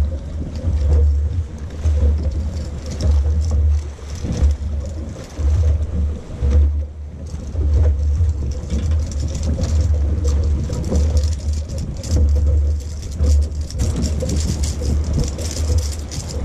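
Wind buffeting the camera microphone in uneven gusts of low rumble, with light splashing of water around the boat.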